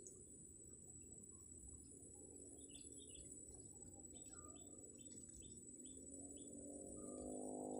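Faint swamp ambience: a steady high insect drone, with short bird chirps repeating from about two seconds in. Near the end a steady low hum of several tones fades in.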